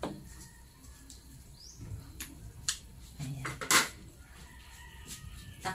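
A few sharp clicks and knocks of a wooden spatula against a metal wok and the plate beside it, the loudest clatter a little before four seconds in.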